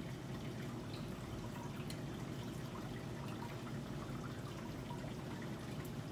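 Donuts frying in a pan of oil: a steady sizzle with small scattered crackles.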